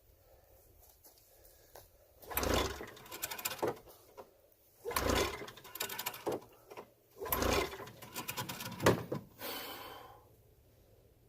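Snowmobile's recoil starter rope yanked three times, each pull spinning the two-stroke engine over with a rapid whirring ratchet, then a shorter whir near the end. The engine does not fire: the fuel has leaked out of it.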